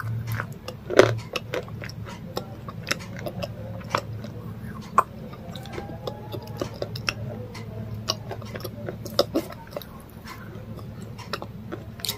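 Close-up mouth sounds of a person chewing food: many small wet clicks and smacks, with a louder one about a second in, over a steady low hum.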